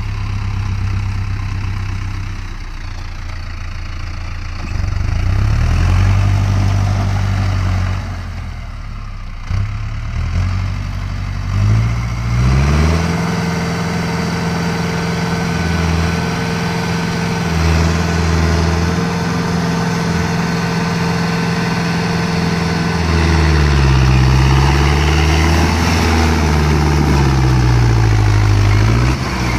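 Mahindra Arjun Novo 655 4×4 tractor's diesel engine working under load, its pitch rising to a steady high run about twelve seconds in. Near the end the revs dip and climb again as the tractor drives up a steep embankment at high rpm in a low gear.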